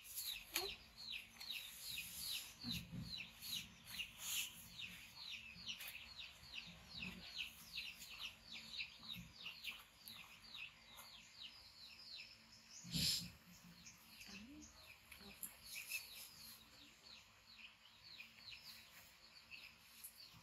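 A bird chirping over and over, short falling chirps at about three a second, faint and steady in rhythm. About two-thirds of the way in there is a single sharp knock.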